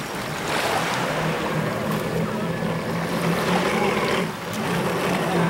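Jet ski engine running steadily over a broad hiss, towing a rider up onto a board; the hum dips briefly about four seconds in.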